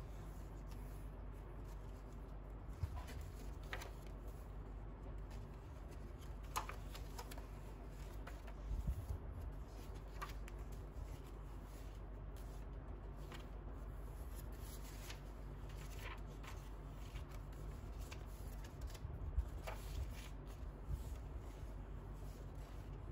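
Paper and card pages of a handmade junk journal being turned and smoothed by hand: soft rustles and occasional light taps and flips every few seconds, over a steady low hum.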